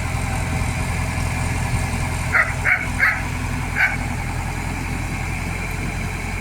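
Heavy diesel engine running steadily, with a dog barking four times about two and a half to four seconds in.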